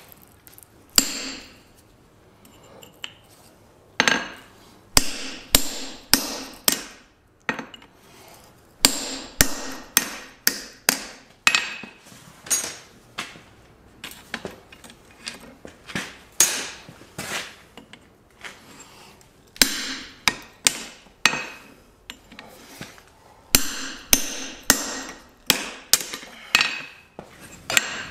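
Hand hammer striking hot steel on an anvil, in runs of quick blows with short pauses between them, each blow leaving a brief metallic ring. Near the end the blows drive a hand punch into the glowing bar.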